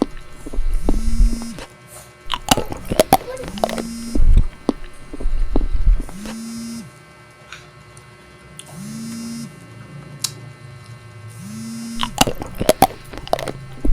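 A small electric motor buzzing in short spells, starting about every two and a half seconds and running for roughly a second each time, with scattered sharp clicks and crackles in between.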